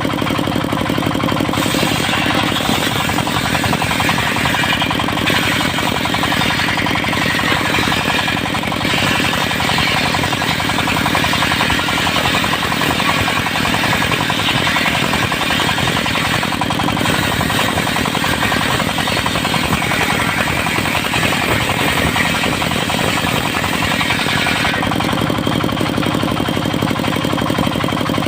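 Engine of a portable circular-saw sawmill running steadily under load. From about two seconds in until a few seconds before the end, the saw blade cuts through a mahogany log, adding a loud, higher, noisy cutting sound over the engine.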